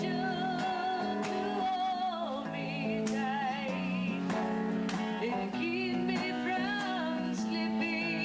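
Music: a song with plucked guitar and a singing voice with vibrato, the strings struck every second or so.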